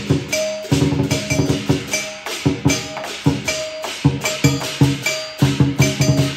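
Teochew lion dance percussion: a big drum beaten together with clashing cymbals and a gong in a quick, steady beat.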